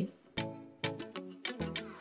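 Background music: a light instrumental loop with a steady beat of percussive hits, about two a second, and short pitched notes between them.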